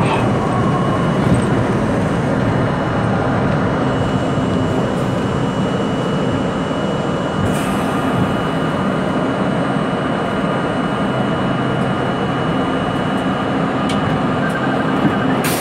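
R32 subway car running through a station and into the tunnel: a steady rumble of wheels on rail and traction motors, with a thin, steady high whine. A sharp click comes about halfway through and another near the end.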